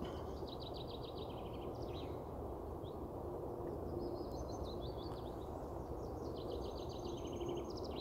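A small songbird sings three times, each song a fast run of high notes that drops in steps and ends in a short flourish. A steady low rumble of background noise runs underneath.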